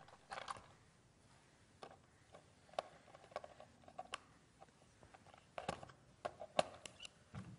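Faint, irregular small clicks and taps of hands fitting a link wire to the screw terminals of switch and socket fittings on a wooden board, with a few sharper clicks bunched after about five and a half seconds.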